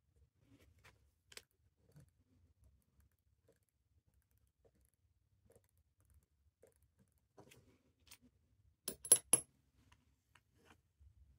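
Faint scattered ticks of small tools, then about nine seconds in three sharp metallic clinks in quick succession as the metal case back of a Seiko 6138 chronograph is set onto the watch case.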